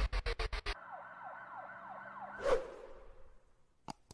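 Intro sound effects: a fast stuttering pulse that stops under a second in, then a fainter siren-like wail of quick repeated sweeps over a steady tone, a whoosh about two and a half seconds in, and a single mouse click near the end.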